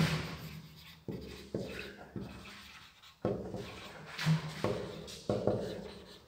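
Marker pen writing on a whiteboard: a run of short scratchy strokes, one word-piece after another.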